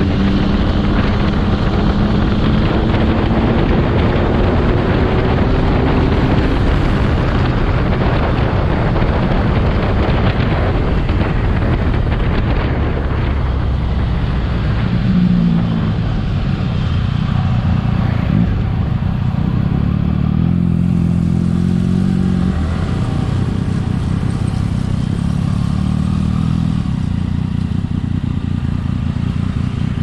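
Motorcycle riding noise at about 60 to 80 km/h: wind rushing over the microphone over a Yamaha R15 V3's engine. The engine note rises slowly as the bike accelerates over the first several seconds. In the second half the engine note steps up and down as the wind eases.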